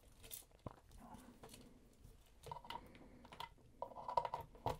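Faint clicks and rustling of small plastic parts being handled, as a USB charging cable is plugged into a miniature RC car, with a brief faint tone about four seconds in.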